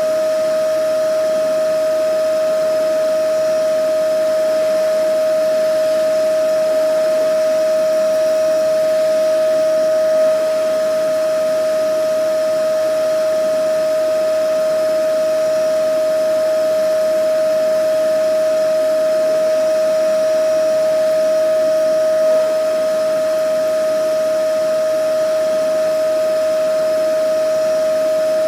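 Vacuum cleaner running steadily: a constant motor whine over an even rush of air, with no change in speed.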